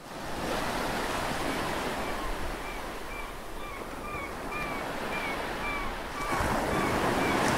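Ocean surf washing on a shore: a steady rushing noise that swells louder near the end. Over it runs a string of short high chirps, about two a second.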